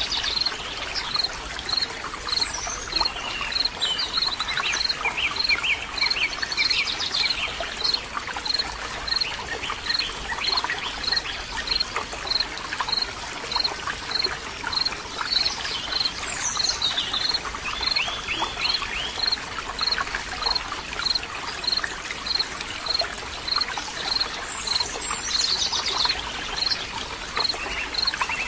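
Running water, like a stream, with birds singing in short trills and a high chirp repeating evenly about every two-thirds of a second.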